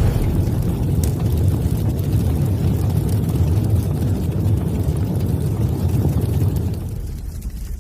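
Steady low rumble of a car heard from inside the cabin, easing off slightly near the end.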